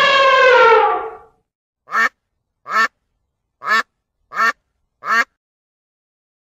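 An elephant's trumpet call, one long horn-like blast falling slightly in pitch and cutting off about a second in. Then a mallard quacks five times, evenly spaced.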